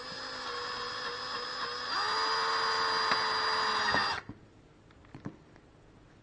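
Electric drill with a #36 bit boring into the plastic shell of a headset ear cup: a steady motor whine that gets louder about two seconds in, then stops abruptly about four seconds in, followed by a few faint clicks.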